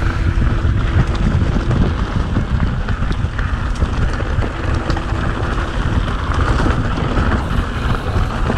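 Mountain bike riding over rough, stony trail: tyres crunching on loose rocks and the bike rattling, with scattered sharp clicks, under a steady rumble of wind buffeting the on-bike camera microphone.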